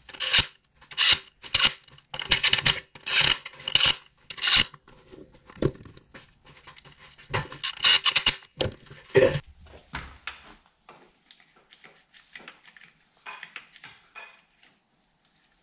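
Cordless drill-driver run in short bursts, a dozen or so over the first ten seconds, running down the bolts on the tractor's freshly sealed transmission case. After that, only faint clicks and rattles of hand tools.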